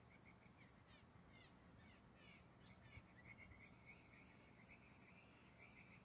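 Faint blue jay calls: a run of quick repeated whistled notes, with a few sharp downward-sweeping notes between about one and two and a half seconds in. The recordist calls them the jays' mating calls.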